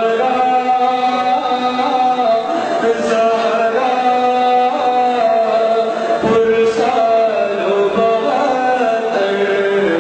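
A man chanting a salaam, an Urdu devotional elegy, in long held melodic notes that slide from one pitch to the next.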